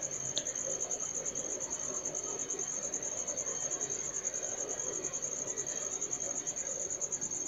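A cricket chirping in a steady, high-pitched trill of rapid, even pulses, with faint background hiss.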